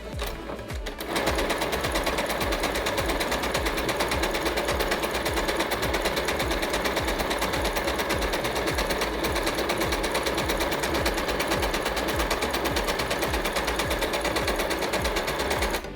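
Yamata digital sewing machine stitching steadily at speed, a fast even run of needle strokes as it sews one of its built-in decorative stitch patterns. It starts about a second in and stops near the end.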